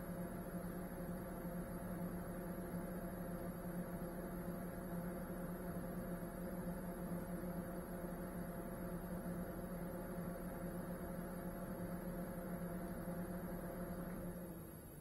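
Small FPV quadcopter's brushless motors running at idle while it rests on the floor, a steady hum with several fixed tones that stops about fourteen and a half seconds in.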